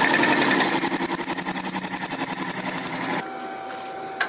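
A wood lathe's turning tool cutting into a Chinese puzzle ball held in a cone chuck, making a rapid, even rhythmic chatter with a high whine. It stops suddenly about three seconds in, and the lathe runs on with a quieter steady hum.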